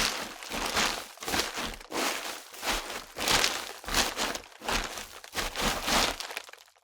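Footsteps crunching on a loose surface at a steady walking pace, about two steps a second, fading out near the end.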